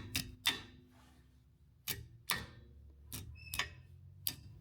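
Steel pliers clicking and clinking against a split pin and the wheel hub's castellated nut: about eight separate sharp metallic clicks, one about three and a half seconds in leaving a brief ring.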